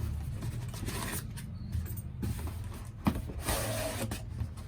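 Laptop box and packaging being handled, with scattered rustles and a sharp knock about three seconds in, over a steady low hum.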